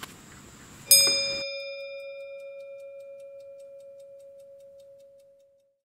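A single bell-like chime struck once about a second in: one clear tone with higher overtones, fading with a slow waver over about four and a half seconds. The background noise cuts off just after the strike.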